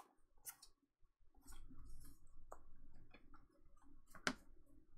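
Pokémon trading cards being slid and flipped through in the hands: faint scattered clicks of card against card, with one sharper click near the end.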